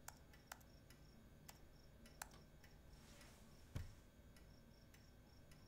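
Faint, sparse taps on a laptop keyboard, a handful of single clicks, with one louder low thump a little past the middle. Behind them a faint high pulse repeats about three times a second.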